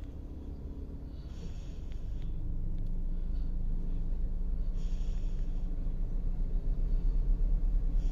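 Low, steady rumble of a car heard from inside the cabin, getting louder a couple of seconds in, with two short breathy hisses over it.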